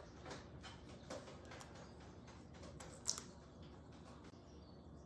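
Faint scattered clicks and light handling noises, with one sharper click about three seconds in, from small scissors and a vine inlay decal sheet being handled on a countertop.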